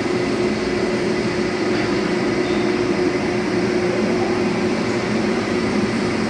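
Steady drone of an industrial blower fan running, a constant low hum with a faint whistle above it.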